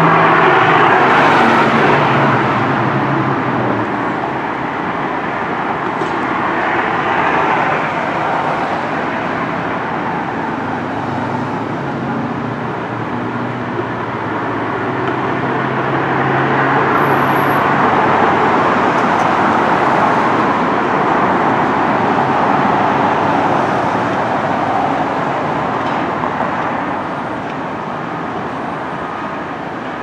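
Steady rumble and rush of moving vehicles, swelling and fading over several seconds, with a low engine drone for a few seconds around the middle.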